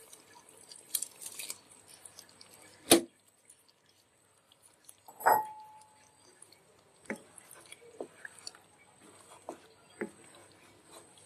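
Kitchen utensil sounds at a nonstick cooking pot: a sharp knock about three seconds in, then a clink with a short ringing tone. After that comes a series of light knocks as a spatula stirs boiled eggs through the thick korma gravy.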